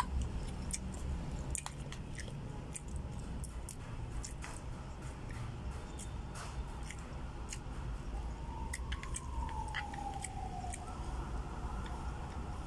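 Close-up chewing of a mouthful of food, with scattered light clicks of a spoon against a plastic food container, over a steady low background rumble. A faint falling whine passes about three quarters of the way through.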